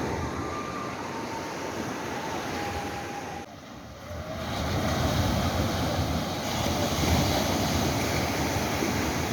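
Sea surf washing on the shore, with wind buffeting the microphone. It dips briefly about a third of the way in, then comes back louder.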